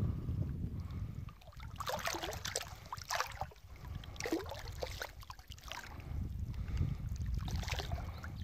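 Water sloshing and splashing around a wading person's legs as he hauls in a cast-net rope, in irregular splashes over a steady low rumble.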